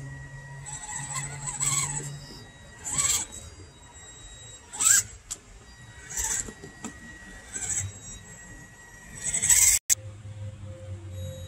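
RGT RC rock crawler's electric motor and gears whining in short bursts as the throttle is worked, about one burst every second or two, over a thin steady whine.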